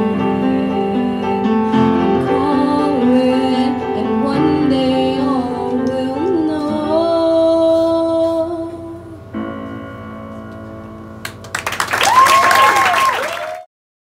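Female voice singing the closing line of a cabaret song with piano accompaniment, ending on a long held note. The piano's final chord then rings alone. Near the end comes a brief loud burst of noisy sound with a gliding tone, then the sound cuts off.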